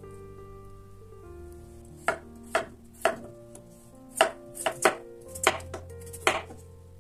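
Knife chopping on a cutting board: about nine sharp cuts at an uneven pace, starting about two seconds in, over soft background music.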